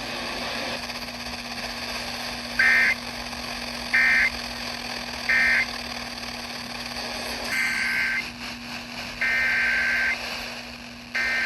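Emergency Alert System SAME digital data bursts, a warbling two-tone squawk, over steady radio hiss and hum. First come three short end-of-message bursts about 1.4 seconds apart. After a short gap come three longer header bursts announcing the next warning, the last one starting near the end.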